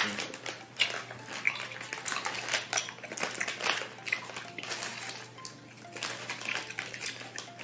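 Plastic candy wrapper crinkling and rustling in irregular crackles as it is handled and torn open.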